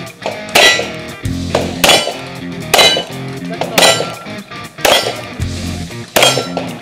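Six 9mm pistol shots from a Glock 19 Gen 4, spaced a little over a second apart, over background rock music with guitar.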